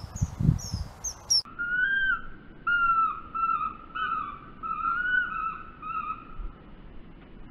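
Common kingfisher calling: a few short, sharp, high-pitched falling whistles over a low rumble. About a second and a half in, the sound changes abruptly to about eight lower, drawn-out falling call notes.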